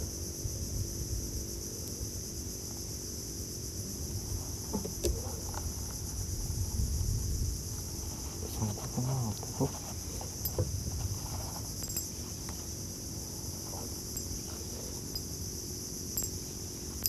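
Steady, high-pitched chorus of insects in the mangroves, with a low rumble beneath and a few light knocks and clicks as fishing tackle is handled in the boat.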